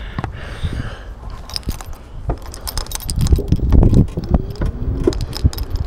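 E100 Eagle electric scooter being ridden over a rough road surface: wind on the microphone with a jangling rattle of loose parts and many clicks and knocks, which get busier and louder about three seconds in.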